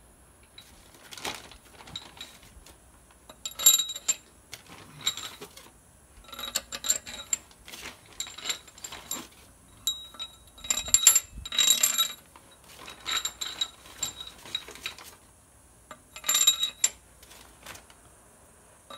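Steel head bolts clinking against each other and against the cylinder head as they are taken from a plastic bag and dropped into their bolt holes by hand. The clinks come in short clusters every second or two, with a metallic ring.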